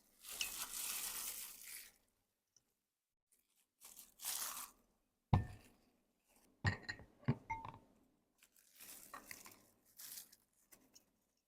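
Chatpate being prepared: several bursts of dry rustling and crunching, with a few sharp knocks near the middle.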